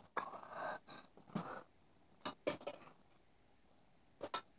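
A few faint scattered taps and rustles, with two sharp clicks near the end: handling and movement noise close to a handheld camera's microphone.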